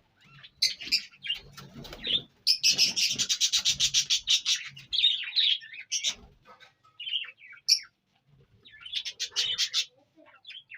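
Indian ringneck parrot calling: a fast run of sharp, high, repeated chirps a couple of seconds in, single calls after it, and another shorter run near the end.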